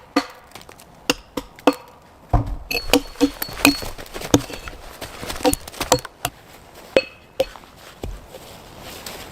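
An irregular run of sharp knocks and clinks, several a second, some with a short metallic ring.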